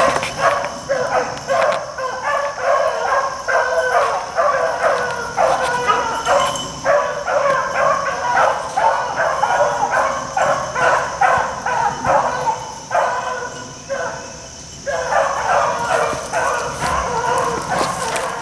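Hunting beagles baying in full cry as they run a track, their calls overlapping several a second. The baying thins and breaks off briefly about fourteen seconds in, then picks up again.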